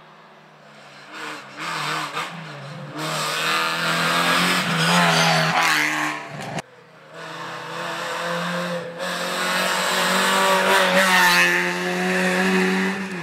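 Rally car engine revving hard as it approaches unseen, its pitch climbing and dropping again and again as it shifts up through the gears. The sound cuts off suddenly about six and a half seconds in, then a second run builds up louder toward the end.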